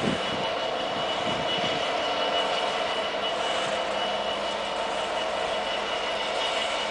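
Class 66 diesel-electric freight locomotive running steadily on its EMD two-stroke V12 as it draws away hauling an intermodal train, mixed with the rolling noise of the train on the track.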